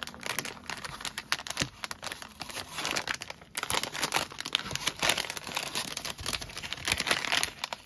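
Plastic blind-bag packet crinkling as it is picked up and handled, with irregular crackles throughout.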